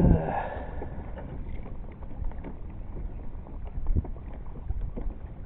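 Kayak moving on water: water lapping and splashing against the hull, with scattered small clicks and knocks and a low rumble of wind on the microphone at the start.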